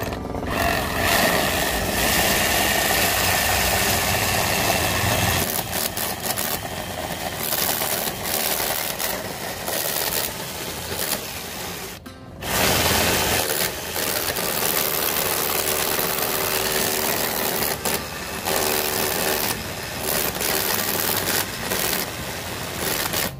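Cordless DeWalt XR rotary hammer cutting a core hole into a wall with a core bit, through a plastic dust-collector shroud. It runs loudly and continuously, stops for a moment about halfway and starts again.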